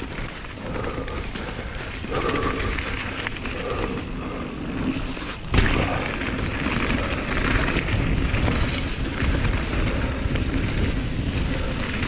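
Mountain bike descending a wet, muddy trail: a steady rush of tyre and wind noise on the microphone, with one sharp, hard knock about five and a half seconds in.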